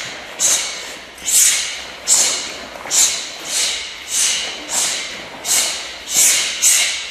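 A karate uniform snapping with each strike and block of a kata, about ten sharp swishes at an uneven pace of one to two a second, each fading quickly.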